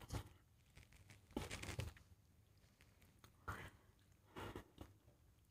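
Mostly near silence, with a few faint, short crackles from an empty thin plastic water bottle being handled in the hand.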